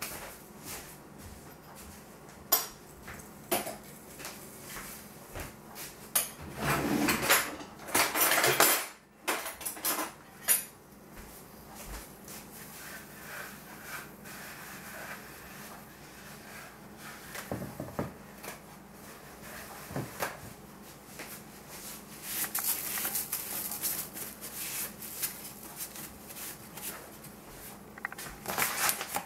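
Kitchen clatter of utensils and cookware being handled: scattered knocks and clinks, with a louder rattling stretch about seven seconds in and more clatter near the end, over a faint steady low hum.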